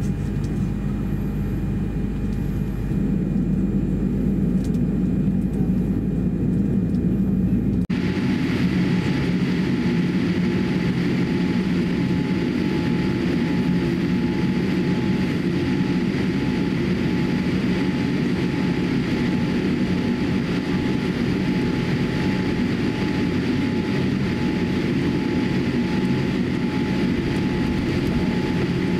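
Boeing 787-8 engines and cabin air heard from inside the cabin during pushback and taxi: a steady low hum with a thin whine. About eight seconds in the sound changes abruptly, the deep rumble giving way to a brighter, hissier engine noise.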